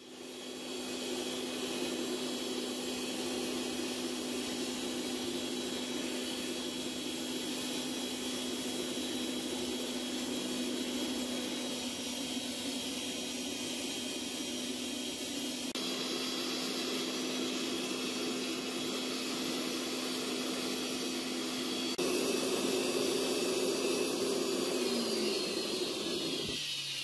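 Air blower forcing air into a homemade forge: a steady rushing hum with a constant low whine, the sound of the forge being run hot to heat the knife blade. Near the end the whine falls in pitch and the sound fades as the blower winds down.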